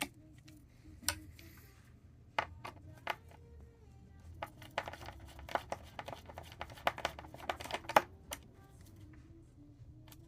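Sharp clicks and taps of hard tools and small parts being handled, coming in a quick irregular run that is thickest in the middle, with faint music underneath.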